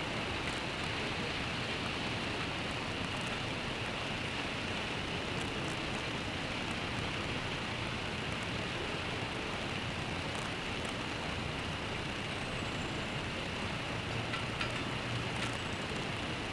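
Steady rain with a constant hiss, mixed with the low hum of traffic, a little stronger near the end.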